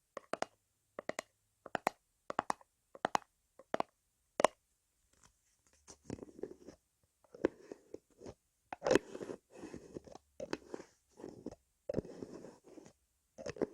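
ASMR ear massage: hands pressing and rubbing on the microphone's ears, very close up. Sharp pops come roughly every two-thirds of a second for the first few seconds. After that they give way to continuous crinkly rubbing with scattered pops.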